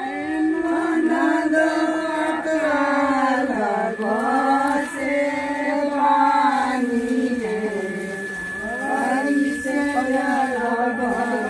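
Women singing a slow, chant-like song together, with long held notes that glide between pitches.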